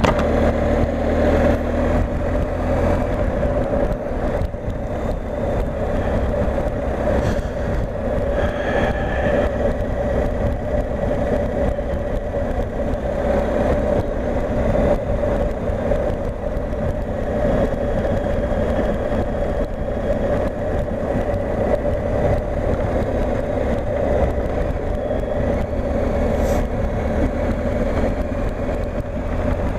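BMW R 1250 GS Adventure's boxer-twin engine running at a steady riding speed, a continuous even drone with no change in pitch.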